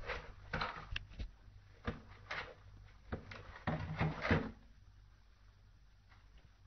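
Cardboard carton being scraped and knocked as a cat paws and pushes its head into the opening: a run of short scuffs and thumps over the first four and a half seconds, then it goes quiet, with a faint low hum underneath.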